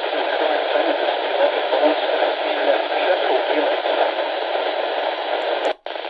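Steady static hiss from the Midland ER10VP's small speaker while it sits on a NOAA weather channel without a clear broadcast. Near the end there are a couple of faint clicks and the hiss cuts out for a moment as the radio steps to the next weather channel, then comes back.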